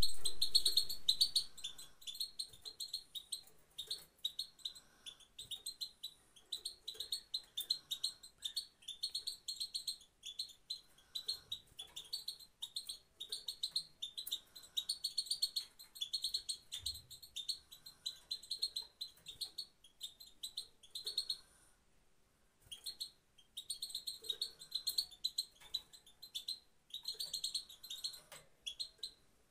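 Female European goldfinch giving its single 'pit-pit' contact call over and over: runs of short, high, quick chirps in clusters, with a gap of about a second a little past the two-thirds mark. A low thump dies away at the very start.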